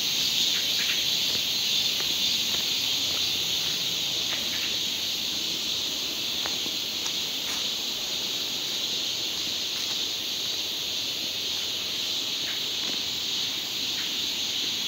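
Steady chorus of insects droning at a high pitch, unbroken throughout, with a few faint ticks scattered through it.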